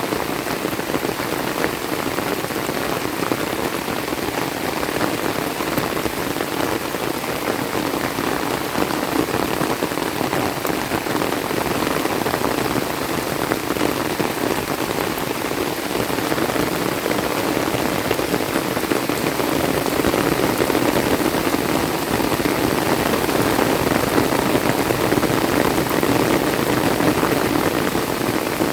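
Heavy rain falling steadily, a dense patter of drops, growing a little louder about two-thirds of the way through.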